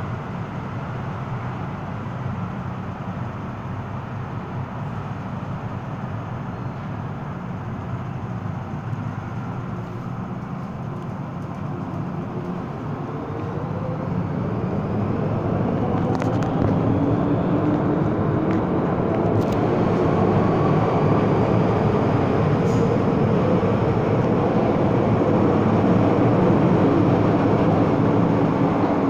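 MTR M-Train electric multiple unit standing with a steady low hum, then pulling out: from about halfway a rising traction-motor whine with several pitches climbing together, and growing wheel-on-rail rumble as it accelerates away, with a few brief sharp squeaks along the way.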